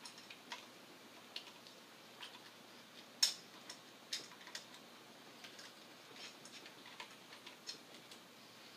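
Faint, irregular metallic clicks of a hand wrench tightening the long screws of an HPA compressor's high-pressure cylinder head, with the sharpest click a little after three seconds.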